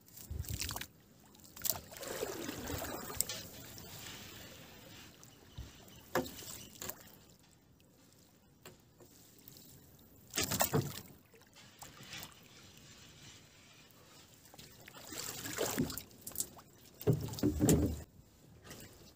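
A wet fishing net being hauled over the side into a wooden boat: the mesh rustles and water trickles off it, with a few sharp knocks against the hull, the loudest about ten seconds in, and a busier stretch of handling near the end.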